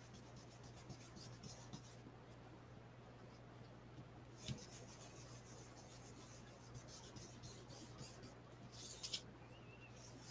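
Blending brush rubbing ink onto cardstock: faint, scratchy brushing in short bouts, about four seconds in and again near the end, over a steady low hum.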